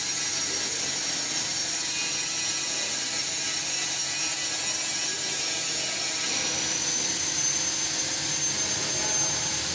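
Steady running noise from a laser cutting machine: an even hiss with a thin high whine that steps slightly higher about six and a half seconds in.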